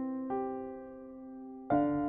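Soft background music of struck chords that ring on and fade, a new chord starting just after the start and another near the end.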